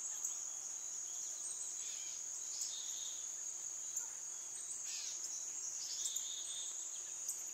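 Steady high chirring of crickets, with a few brief chirps over it.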